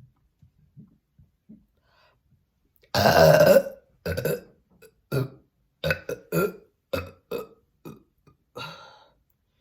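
A person burping on command: one long, loud burp about three seconds in, then a quick string of about ten shorter burps.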